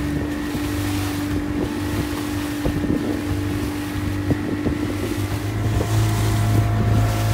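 Small boat's engine running steadily under way, with water rushing and splashing off the hull and wind buffeting the microphone. The engine's low note grows louder about five and a half seconds in.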